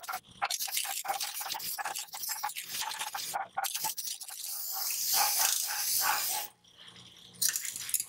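Spinning wire brush wheel, driven by a washing machine motor, scraping along a flat steel bar to strip rust: an irregular rasping, scratching noise that swells as the bar is pressed in and drops away briefly near the end. The motor's faint steady hum runs underneath.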